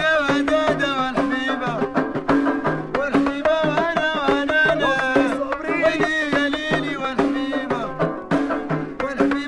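Background music in a Middle Eastern folk style: a wavering lead melody over steady hand-drum strokes and a repeating low note.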